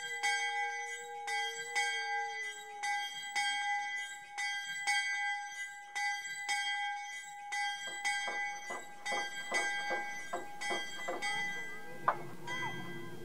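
A bell ringing, struck over and over at about two strikes a second with its tone carrying on between them. After about eight seconds the strikes come faster, and a sharp click near the end is the loudest moment.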